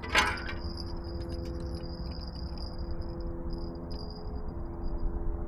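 Outdoor ambience with a steady low rumble of wind on the microphone under a faint steady hum and a high whine that flickers on and off, broken by one brief sharp rustle just after the start.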